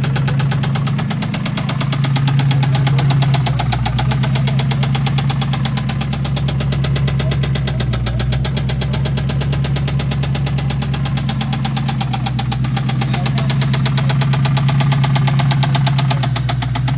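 Ford Mustang's 2-valve 4.6-litre V8 running steadily with a rapid, even knocking: rod knock from a worn connecting-rod bearing.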